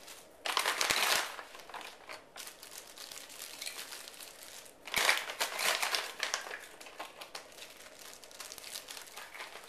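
Plastic bags crinkling and rustling as frozen whole strawberries are scooped from their bag and dropped into zip-top freezer bags, with small clicks throughout and two louder bursts of rustling, about half a second in and around five seconds in.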